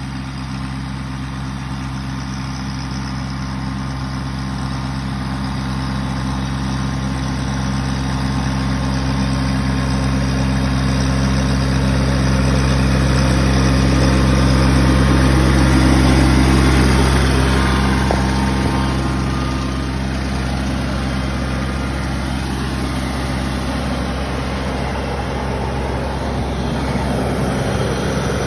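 Compact tractor engine running steadily while powering an air-blast mist sprayer, its large fan blowing with a constant rushing hiss. The sound grows louder as the rig comes close, peaks a little past halfway, then eases off as it moves away.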